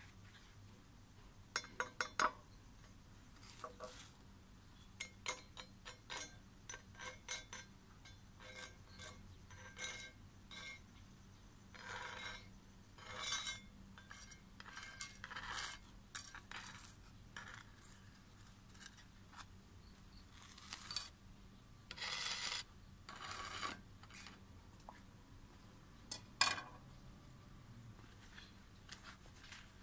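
Small steel pieces, a stick-welding electrode and short offcuts, clinking, tapping and scraping against a welded steel test plate and a granite surface as they are picked up and set down. Scattered light clicks throughout, with a few longer scrapes near the middle and about three quarters of the way through.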